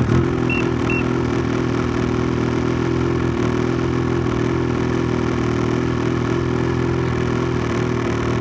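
A 2022 Ski-Doo Summit Edge 850 snowmobile's Rotax 850 E-TEC two-stroke twin idles steadily just after starting. Two short high beeps sound about half a second and a second in.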